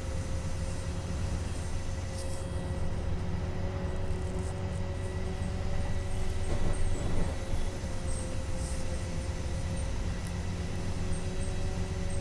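Inside a LiAZ-5292.22 city bus under way: steady low engine and road rumble with a faint steady whine over it, swelling louder about seven seconds in.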